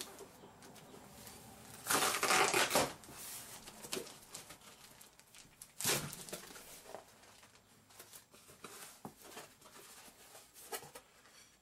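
Cardboard shipping box being opened by hand. The flaps rip free with a loud tear lasting about a second near the start, then cardboard and plastic wrap rustle and crinkle, with a sharp crack about six seconds in.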